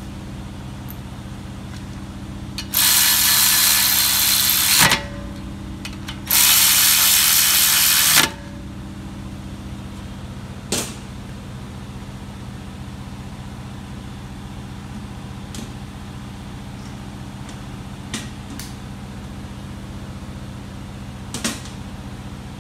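Electric ratchet running the front brake caliper bolts in: two runs of about two seconds each, a few seconds apart. A steady low hum lies underneath, and a few short clicks come later.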